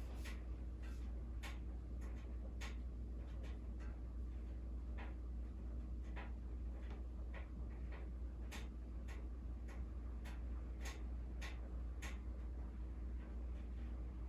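Steady low hum with scattered faint clicks, irregularly spaced and sometimes about two a second.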